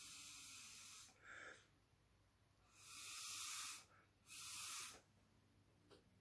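A person blowing through a drinking straw onto wet watery paint to push it into branch shapes: four hissing puffs of breath, the third and fourth the longest and strongest, with short pauses between.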